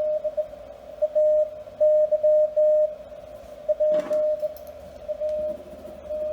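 Morse code (CW) tone near 600 Hz keyed on and off in dots and dashes, heard over a ham radio's hiss, with a sharp click about four seconds in.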